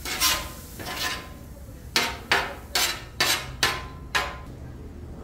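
Metal spatulas scraping and clanking on a flat-top griddle as food is pushed aside: a string of short strokes, several in quick succession from about two seconds in.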